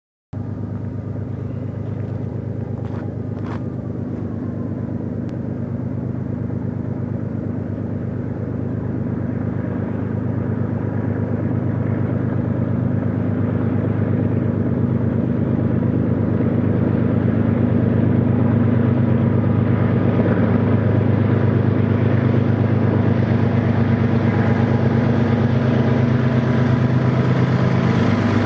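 Diesel locomotives of an approaching BNSF intermodal freight train, their engines giving a steady low rumble that grows louder as the train draws near.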